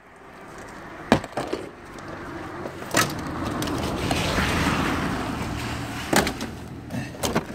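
A car's plastic dashboard being smashed and torn apart: an axe blow about a second in, then the dash cracking and tearing as it is wrenched out by hand, with sharp snaps around three and six seconds.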